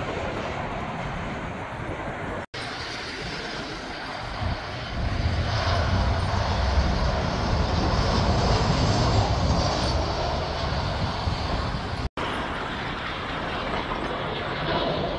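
Jet engines of Boeing 737 airliners on landing approach, a steady rushing roar with a deep rumble that grows stronger a few seconds in. The sound drops out for an instant twice, where the recording cuts from one passing aircraft to the next.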